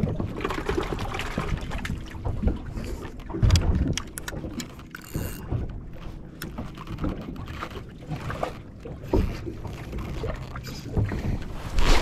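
Wind buffeting the microphone and choppy water slapping against a small boat's hull, with scattered clicks and knocks from handling fishing rods and tackle. A heavier thump comes about three and a half seconds in and another near the end.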